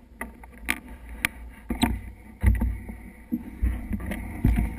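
Low rumbling thumps and buffeting on a handheld camera's microphone, with a few sharp clicks and knocks: wind and handling noise.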